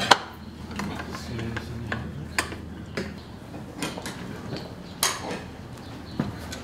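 Metal clamps being worked and tightened to draw a steamed oak plank onto a wooden boat's frames: scattered sharp clicks and knocks at uneven intervals, the loudest right at the start.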